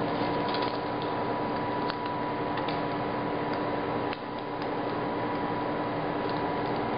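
Steady hiss and hum of an air table's blower pushing air up through the perforated tabletop, with a few faint ticks.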